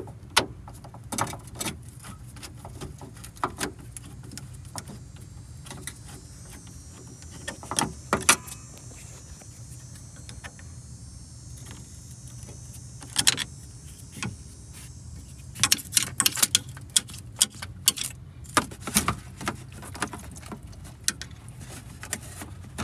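Hand tools clicking and tapping on metal while disconnecting a radiator: scattered sharp metallic clicks, a few around a third of the way in and a busier run through the second half, over a steady low hum.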